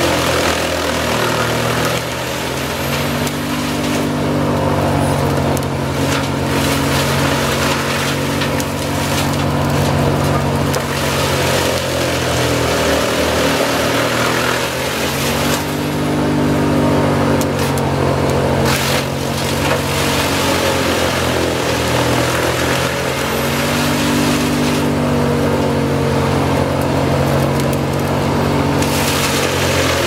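Forwarder-mounted wood chipper on a Komatsu 890.3 chipping crane-fed logging slash: a loud, steady engine-and-drum din with crackling from the branches being shredded. The engine note dips and recovers several times as loads of branches go in.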